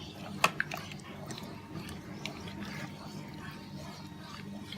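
Metal utensil clinking and scraping in a stainless steel pot while the curry mixture is stirred, with one sharp clink about half a second in and lighter clicks after it.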